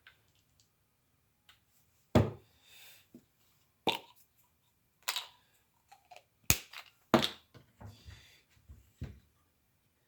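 Scattered sharp knocks and clicks, about six in all, of hand tools and small metal parts being handled while the muffler bracket is unbolted from a Homelite Super XL chainsaw.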